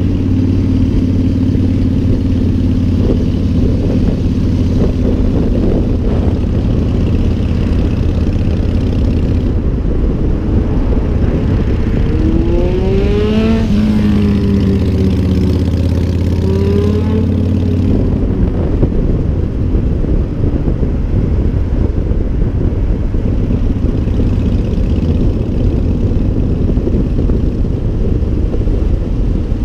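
Motorcycle engine running at road speed, with wind rushing over the microphone. About halfway through, an engine revs up and falls back in pitch. For the last part, wind and road rush drown out the steady engine note.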